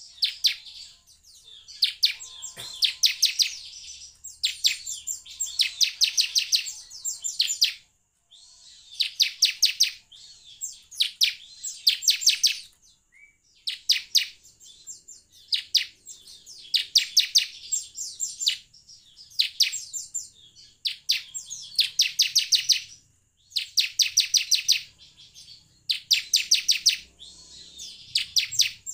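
Ciblek (bar-winged prinia) song: repeated bursts of rapid, high chipping notes, each burst about a second long and coming roughly every two seconds. A faint steady high tone runs underneath.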